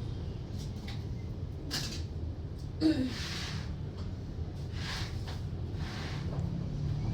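A sleeping person breathing noisily in short breathy snores, with one louder snort about three seconds in, over a steady low hum.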